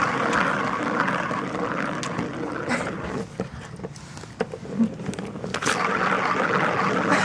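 Ball rolling round the plastic track of a circular cat scratcher toy, a continuous rolling rattle with scattered knocks and clicks as a puppy paws and noses at the toy. The rolling is loudest at the start and again shortly before the end.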